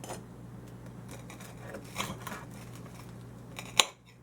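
A utensil working on a crisp toasted grilled cheese sandwich: several short, crisp scraping and crunching sounds, then a sharp clack near the end, over a steady low hum.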